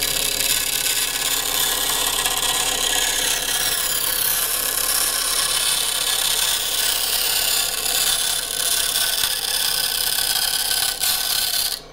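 Benchtop band saw cutting through an aluminum stiffener angle, a steady loud sawing noise that cuts off at the very end.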